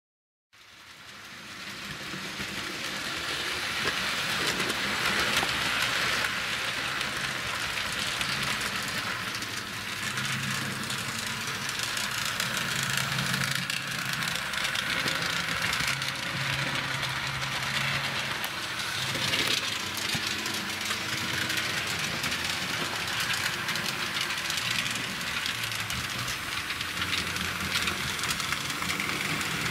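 Model trains running on a layout: a steady hiss and rattle of small wheels on track with motor hum, fading in over the first few seconds, and a faint low hum that comes and goes.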